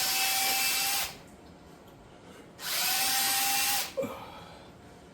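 Power drill boring plastic out of a through-hole in a plastic part, run in two bursts with a steady motor whine: the first stops about a second in, the second lasts just over a second around the middle. A short click follows the second burst.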